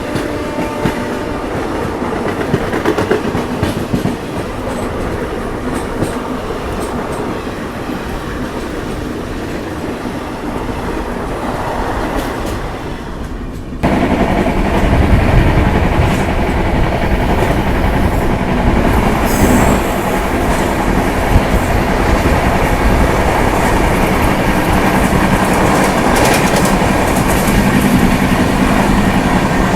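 Passing trains clattering over the rail joints. About 14 s in the sound cuts abruptly to a louder, deeper train rumble, with a brief high wheel squeal a few seconds later.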